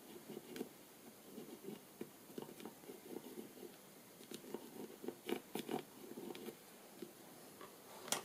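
Pencil scratching faintly on a small hardwood block as it traces along the edge of a plastic template, with small handling clicks and a sharper tap near the end.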